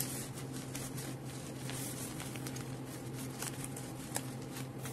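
Sheets of florist wrapping paper rustling and crackling in short scattered ticks as they are handled and laid flat, over a steady low hum.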